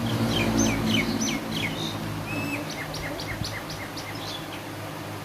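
A small bird singing: a run of quick high chirps that sweep downward, a short held whistle, then a second, faster run of chirps, over a steady low hum.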